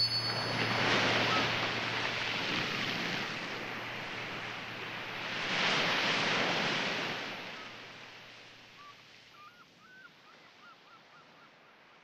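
Surf breaking on a beach: two waves wash in, about a second in and about six seconds in, and then the sound fades away. The last notes of a chime ring out at the very start, and faint, rapid bird calls come in near the end.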